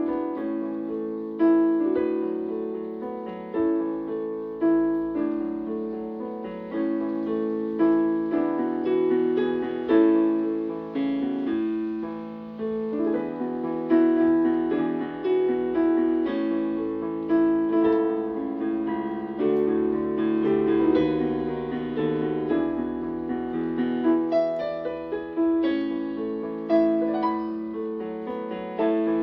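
Electronic keyboard played in a piano voice: a slow, gentle melody in three-four time with chords, each note striking and fading.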